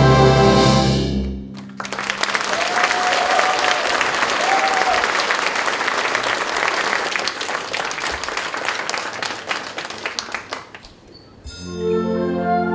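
A wind band's closing chord dies away, then the audience applauds for about nine seconds. After a brief pause near the end, the wind band starts the next piece.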